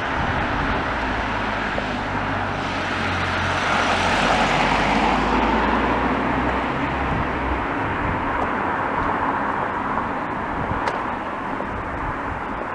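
A car passing on the road, its engine and tyre noise swelling to a peak about four seconds in and then slowly fading into steady street noise.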